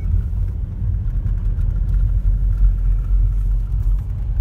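Steady low rumble of a Ford car driving on an unpaved dirt road, heard from inside the cabin: tyre and road noise with the engine running underneath.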